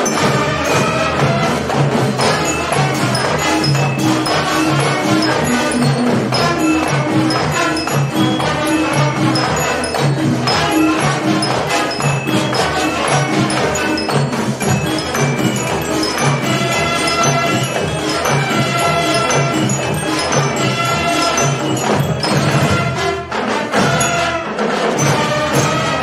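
Marching band playing: brass horns carry the tune over a steady beat of snare, tenor and bass drums.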